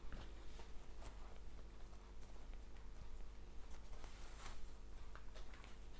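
Faint soft rustling and small scratches of a crochet hook drawing T-shirt yarn through stitches, over a faint steady hum.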